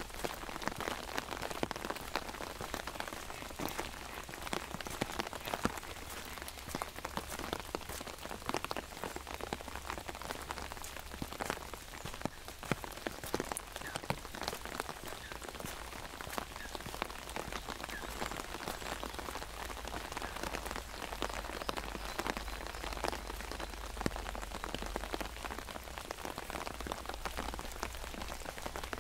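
Steady rain, with many separate drops tapping on an umbrella overhead.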